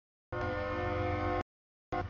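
Diesel freight locomotive blowing its air horn, a chord of steady tones over the engine's low rumble. The feed drops to dead silence at the start and again for about half a second near the end.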